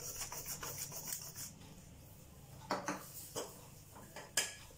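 Hand pepper mill grinding peppercorns with fast rasping strokes, which stop about a second and a half in. Three short sharp clicks follow.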